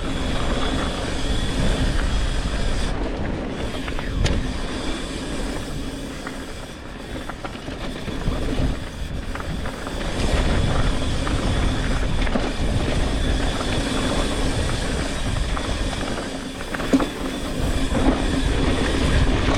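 Mountain bike riding down a dirt trail, heard from a rider-worn GoPro: tyres rolling and skidding over dirt and rock, the bike rattling, and wind on the microphone. It eases off briefly partway through, and a sharp knock of the bike hitting something comes near the end.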